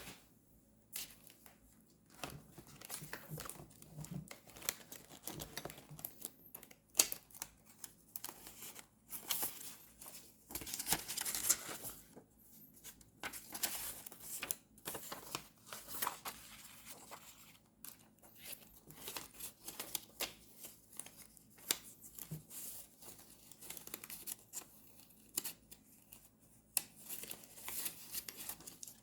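Paper and stickers being handled for journal decorating: intermittent rustling, peeling and tearing, with scattered clicks and taps. A longer rustle or tear comes about ten to twelve seconds in.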